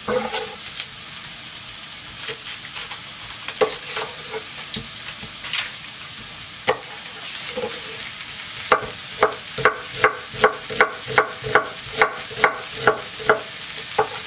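Chef's knife slicing an onion on a wooden cutting board: scattered knocks at first, then a steady run of chops, about two to three a second, over the last five seconds. A steady sizzle of sliced kielbasa frying in a skillet runs underneath.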